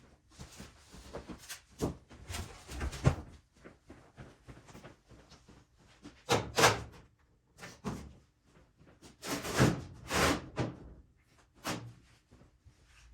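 Irregular knocks, thumps and scraping of hands-on work in a garage, coming in clusters about two to three seconds in, around six and a half seconds, and around nine to ten seconds, with quieter handling noise between them.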